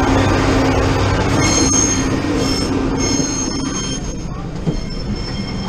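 Passenger train running, heard from the gangway between carriages: a loud rumble of wheels and running gear. From about a second and a half in, the steel wheels squeal on the rails in several high, steady tones that come and go. The rumble eases slightly near the end.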